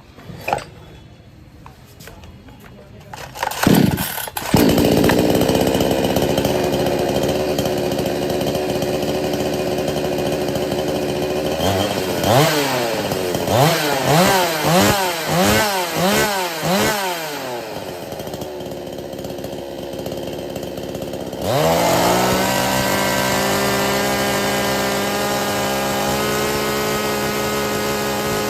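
Two-stroke petrol chainsaw starting about four seconds in and idling, then revved up and down several times, and from about three-quarters of the way through held at steady high revs.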